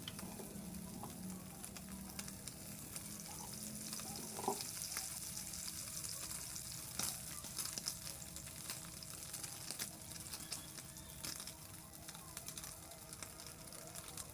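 Hilsa roe frying in oil in a pan: a steady sizzle with scattered sharp crackles and pops from the hot oil.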